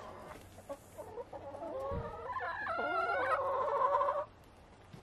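Backyard hens calling and clucking. From about two seconds in, one drawn-out call rises and then holds steady for about two seconds before cutting off suddenly.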